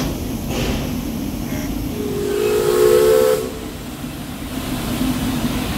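Steam whistle of a Crown Metal Products narrow-gauge 4-4-0 steam locomotive, one blast of about a second and a half starting about two seconds in, rising slightly in pitch.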